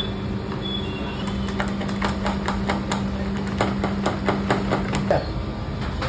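Metal spoons clinking and tapping repeatedly against a steel bowl and the cups as topping is spooned out, several sharp clicks a second, over a steady machine hum that cuts off about five seconds in.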